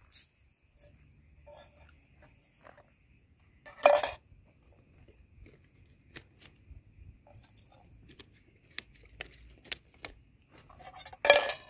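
Metal camping cook pot clattering: two loud clanks, about four seconds in and again near the end, with small clicks and knocks in between as a plastic water bottle is handled.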